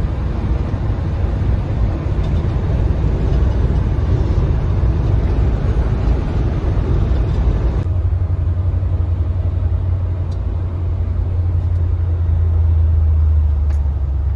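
Road and engine noise heard from inside a moving van's cabin. It is a dense steady rush at highway speed, and about 8 seconds in it changes abruptly to a quieter, steadier low rumble on a slower exit ramp.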